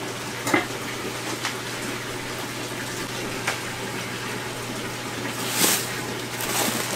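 Steady rush of running water from the aquarium systems, with a low steady hum under it. About five and a half seconds in, the plastic bag lining a styrofoam fish-shipping box crinkles as hands reach into it.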